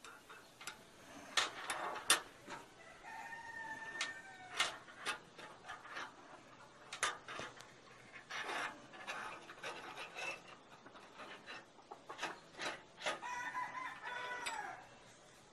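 A steel hinge pin being slid, turned and scraped through the knuckles of mild-steel hinge pieces on a steel table, with irregular clicks and metal rubbing. Two longer, steady higher tones stand out, about three seconds in and near the end, the second dropping in pitch as it stops.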